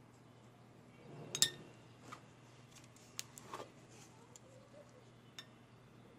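A spoon clinking and knocking against a bowl while stirring a thick paste, a few separate light clicks with the loudest about one and a half seconds in.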